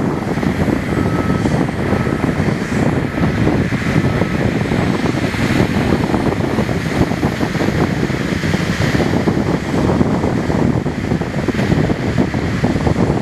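Diesel engine of a loaded Volvo articulated dump truck running steadily as it moves across the sand, under heavy wind noise on the microphone and surf. A few short faint beeps come about one to four seconds in.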